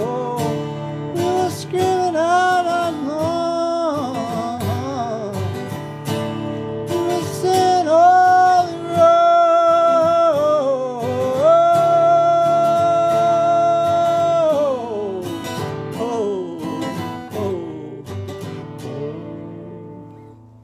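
A man singing long, wavering held notes over a strummed acoustic guitar, the longest note about two-thirds of the way through; the music fades out near the end.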